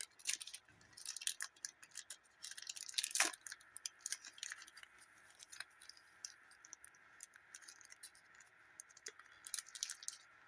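Wrapper of a trading card pack crinkling and crackling as it is torn open and the cards are handled, in many small irregular clicks, with one louder crackle about three seconds in.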